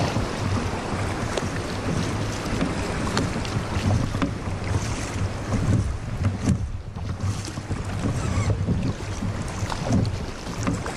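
Kayak paddle strokes splashing and water sloshing along the kayak's hull, with wind buffeting the microphone as a steady low rumble.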